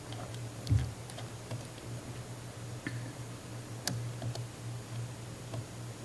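Quiet room tone: a steady low hum with scattered faint, irregular clicks, and a soft thump about a second in.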